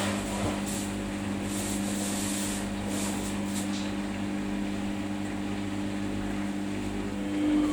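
Samsung washing machine running mid-cycle, a steady motor hum with a low held tone.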